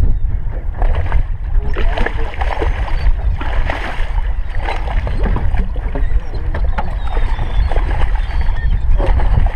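Strong, steady wind rumble on the microphone over water around the boat, with scattered knocks and a hooked striped bass splashing at the landing net near the end.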